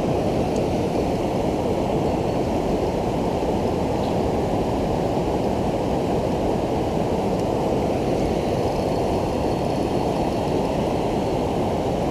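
River current rushing over a shallow, broken-water riffle close by, a steady rush that sits mostly in the low range.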